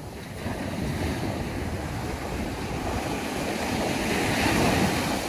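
Ocean surf breaking and washing up the beach close by, with wind rumbling on the microphone. The wash swells and gets louder toward the end.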